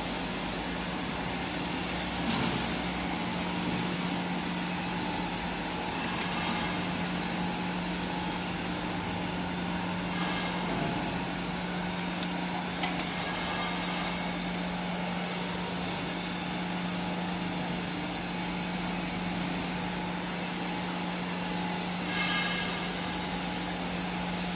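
Glass edging machine running steadily, with a constant motor hum and brief louder swells every few seconds.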